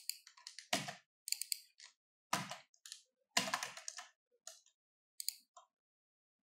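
Computer keyboard keystrokes: a dozen or so separate key presses and clicks, irregularly spaced, some with a dull thud, stopping about a second before the end.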